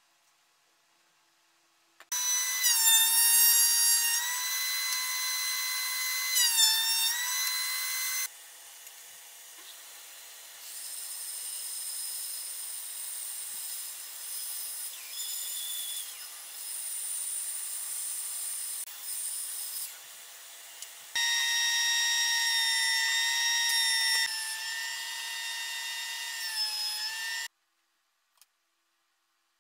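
Power saws cutting pine boards. A saw motor whines at a high steady pitch that dips twice as the blade takes the wood. Then a band saw hisses more quietly while ripping a board, and a table saw whines and dips as it cuts before stopping suddenly near the end.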